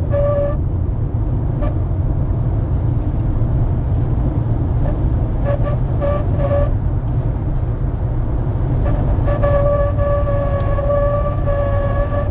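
Chery Tiggo 4 Pro wind whistle: a steady high whistle with overtones over a low road rumble. The whistle stops about half a second in, comes back in short pulses around the middle, and returns steadily from about nine seconds. It is the whistle the car makes in a crosswind.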